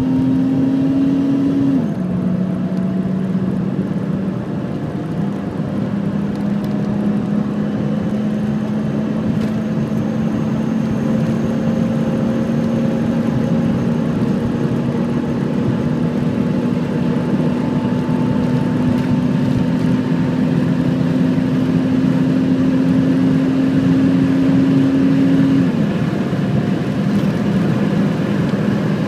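Holden VS Commodore's supercharged L67 V6, fitted with an aftermarket exhaust and cold air intake, accelerating hard at high speed, heard from inside the cabin over road and wind noise. Its note rises, drops at a gear change about two seconds in, then climbs slowly for over twenty seconds before stepping down again near the end.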